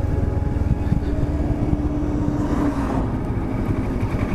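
Motorcycle on the move, with a steady low rumble of engine and wind noise, while an oncoming truck goes past. A steady hum in the mix drops slightly in pitch about two and a half seconds in.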